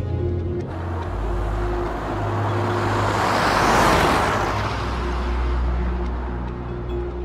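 A car passing by: engine and tyre noise swells to a peak about four seconds in, then fades away.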